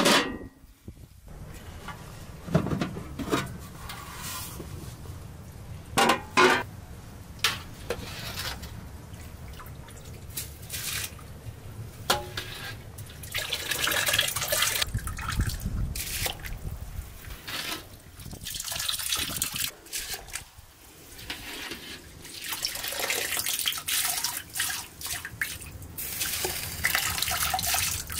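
Water splashing and dripping, with scattered knocks and clicks and denser stretches of splashing around the middle and near the end.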